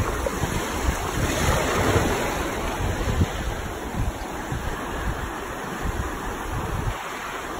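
Surf washing onto a sandy beach, swelling about a second and a half in, with wind buffeting the microphone in gusts.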